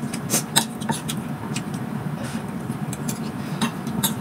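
Metal spoon clinking and scraping against a ceramic plate of rice, several short clicks scattered through, with chewing between them. A steady low hum runs underneath.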